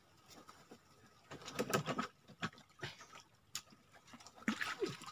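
A fish trap being hauled up out of river water beside a small boat: irregular knocks, scrapes and small splashes of the trap frame and water, with a short falling squeak near the end.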